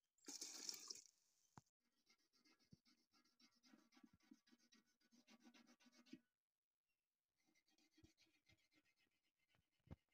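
Water poured from a small steel cup into a steel pot, a short splash lasting under a second, which is the loudest sound. Then a faint, rapid scratching and rustling runs for several seconds, breaks off about six seconds in, and comes back near the end.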